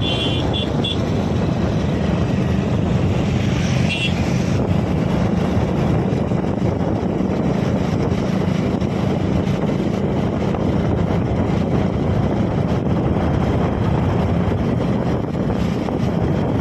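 Wind rushing over the microphone on a moving vehicle, with a steady engine drone underneath on an open road. A few short, high beeps come near the start and again about four seconds in.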